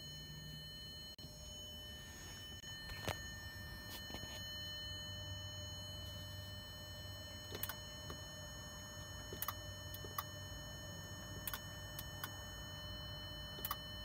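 Short, sharp clicks of the overhead HomeLink push-buttons being pressed one at a time, about eight in all, over a steady low hum and a faint high electronic whine.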